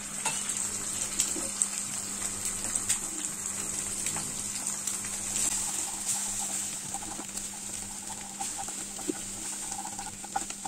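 Two eggs frying in hot oil in a nonstick kadai, sizzling with steady fine crackling. Partway through, a wooden spatula stirs and breaks them up into scrambled pieces.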